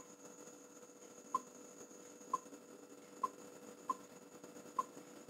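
Canon EOS 650D camera's confirmation beeps, six short high beeps at uneven intervals as its touchscreen is tapped, each tap registering on the newly replaced LCD.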